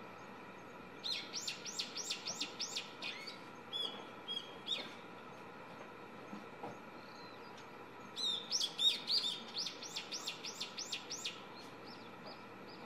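Young brown-eared bulbul singing: two bouts of quick, repeated high notes, about four a second, separated by a few shorter calls. A steady hum runs underneath, which the recordist puts down to the camera itself or to air conditioning.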